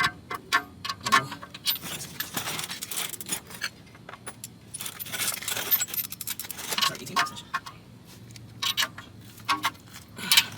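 Small metal objects clinking and clicking irregularly, with a few short rustling stretches between the clicks.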